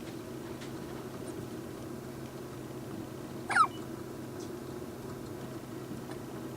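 A single short, high-pitched hiccup about halfway through, over a steady low hum.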